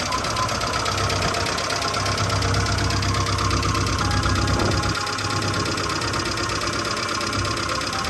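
Citroën GS air-cooled flat-four engine idling steadily, heard from over the open engine bay, a little louder in the middle and easing about five seconds in.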